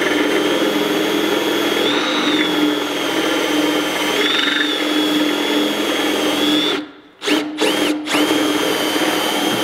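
Cordless drill running under load, boring a hole through a metal oil pan for a -10 oil return fitting. The motor's steady whine stops about seven seconds in, gives two short blips, then runs on again.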